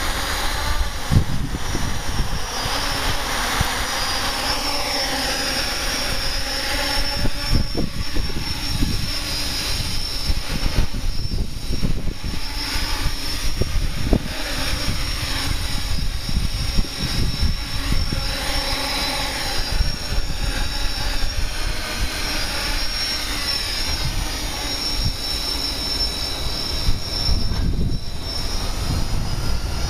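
Hexacopter's six 1000 kV brushless outrunner motors spinning three-blade 8×4.5 propellers: a steady high whine whose pitch rises and falls as the throttle changes during a low hover, with a low rumble underneath.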